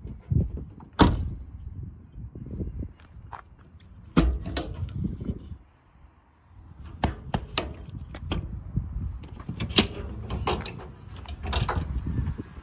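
Truck doors being opened and shut: a sharp bang about a second in and another just after four seconds, then a run of latch clicks and knocks in the second half.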